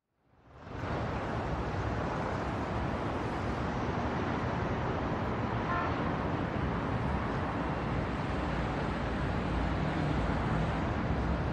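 Steady rushing noise of the kind road traffic makes. It fades in at the start and out at the end, with a brief faint toot about six seconds in.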